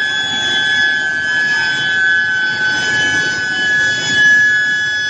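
Billet reheating induction furnace giving a steady high-pitched whine, with a noisy machinery rumble beneath.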